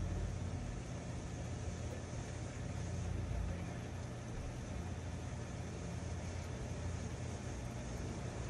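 Chicken curry simmering in a covered frying pan on a cooktop: a steady low hum with a soft, even hiss and no separate knocks or clinks.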